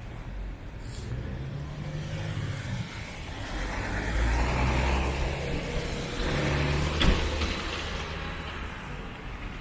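Street traffic: a motor vehicle's engine and tyres passing close, building from about three seconds in to loudest around seven seconds, with a sharp click near the peak, then fading.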